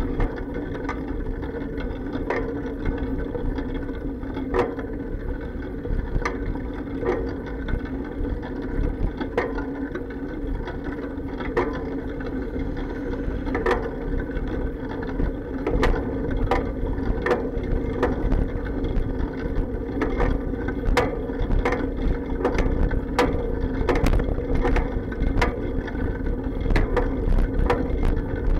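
Bicycle rolling over pavement, heard through an action camera's sealed waterproof case: a steady muffled rumble with frequent irregular clacks and knocks from bumps passed through the bike frame, the clacks coming more often near the end.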